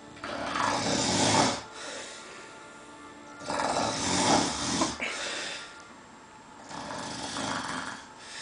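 A man snoring heavily in his sleep: two loud, rough snores about three and a half seconds apart, each followed by a quieter breath, then a softer snore near the end.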